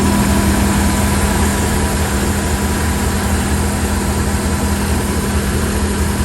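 Carbureted engine of a 1986 Ford RV idling steadily with a low, even hum, running just after the carburetor's leaking accelerator pump was replaced.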